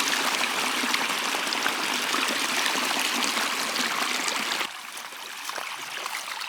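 Diverted rainwater runoff running out into a field: a steady rush of flowing water that drops suddenly to a quieter flow about three-quarters of the way through.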